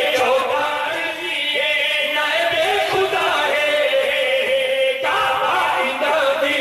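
Men chanting a Shia devotional qasida: a lead reciter sings into a microphone while other men's voices join in together.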